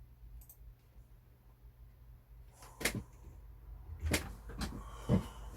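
A steady low hum, then four sharp knocks or clunks in the second half, like objects being handled or set down on a desk.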